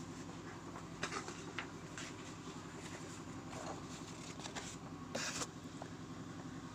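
Paper rustling and crackling as printed ultrasound report sheets are handled and unfolded, in short scattered rustles with a longer one about five seconds in, over a steady low hum.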